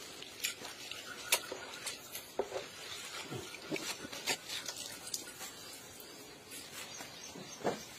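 Faint, scattered splashes and drips of water as bunches of leafy greens are dunked into and lifted out of a tub of water.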